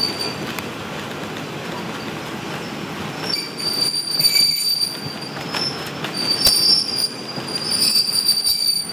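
Train wheels running on steel rail, then from about a third of the way in a high-pitched wheel squeal that comes and goes, typical of wheel flanges grinding against the rail on a curve, with a few sharp clicks.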